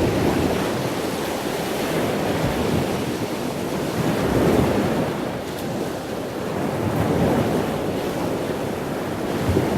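Wind buffeting the microphone over rushing water and waves, swelling and easing every few seconds.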